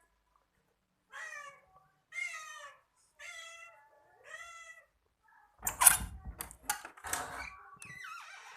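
Cats fighting, played back from a video: four drawn-out, wavering yowls about a second apart, then a loud scuffle of sharp hisses and spits from about halfway through.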